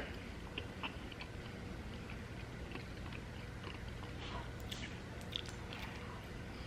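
A person chewing food close to the microphone: soft, irregular mouth clicks and smacks.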